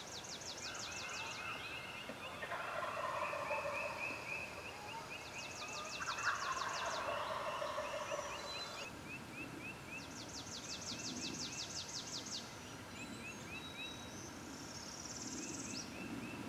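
Eastern wild turkey gobbler gobbling twice, a few seconds apart, with songbirds trilling and chirping throughout.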